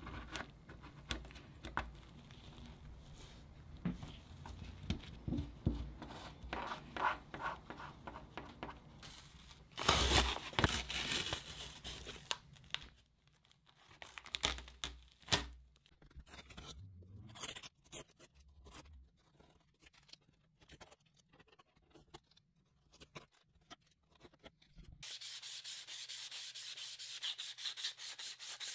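A wooden stick scraping and smoothing wet epoxy around a plastic inset handle recess in a foam board, with light scrapes and clicks; about ten seconds in there is a louder, longer rasping stretch as masking tape is pulled off the foam. Near the end, a steady rapid back-and-forth hand sanding of a plastic fin box on sandpaper.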